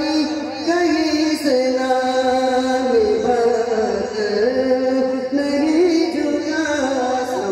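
A man singing a naat, an Urdu devotional poem in praise of the Prophet, into a microphone, drawing out long held notes that slide between pitches.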